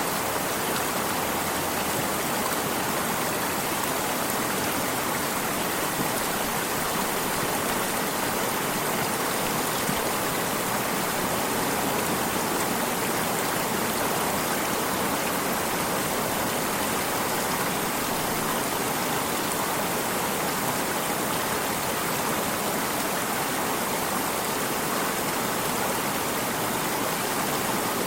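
Running water of a stream, a steady rushing and splashing that holds an even level throughout.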